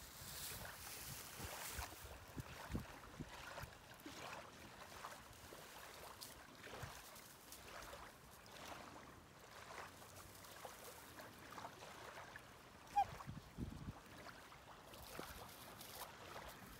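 Quiet shoreline ambience: faint wind and water with scattered soft low bumps, and one short high note about three-quarters of the way through.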